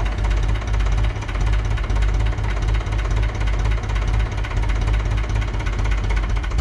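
1958 Fordson Power Major's four-cylinder direct-injection diesel engine running steadily at low revs while the tractor creeps forward.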